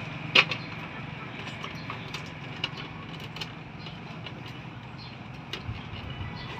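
Scattered light clicks and rustling of rope being wound and knotted around a motorcycle handlebar, the sharpest click about half a second in, over a steady low hum.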